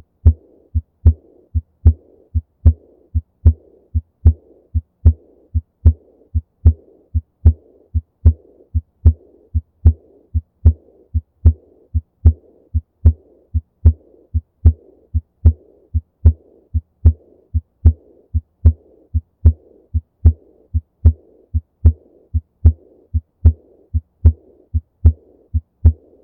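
Heart sounds of aortic regurgitation: a steady lub-dub a little over once a second, with a soft blowing murmur between the beats. The murmur is typical of blood leaking back through an aortic valve that fails to close.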